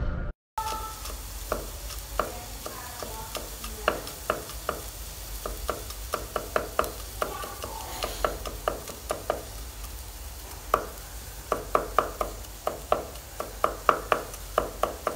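Oil heating in a steel wok on a gas burner, with a steady low hiss and sharp irregular ticks and pops that come more often in the second half.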